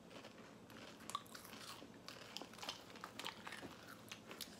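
Lay's potato chips being chewed with the mouth near closed: faint, irregular crunches.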